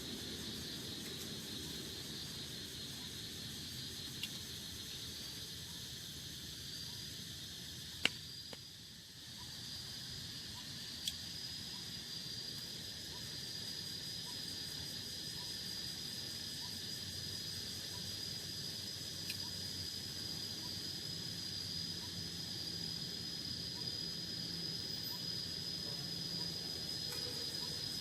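Insects trilling: a steady high-pitched cricket-like trill that becomes unbroken after about ten seconds, over a low steady rush, with a few sharp clicks, the loudest about eight seconds in.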